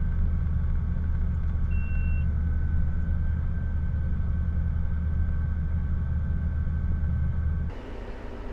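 Combine harvester engine running steadily with a low drone, with one short high beep about two seconds in. The sound cuts off abruptly near the end to a quieter hum.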